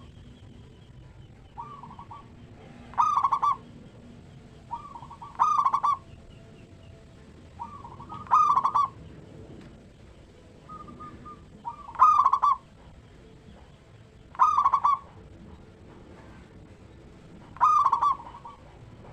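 Zebra dove (perkutut) singing its cooing song, repeated six times about every three seconds. Each phrase is a soft short note followed by a louder rolling coo.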